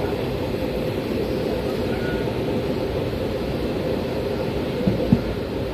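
Steady rumble of a moving Indian Railways express train, heard from inside a sleeper coach, with two short knocks about five seconds in.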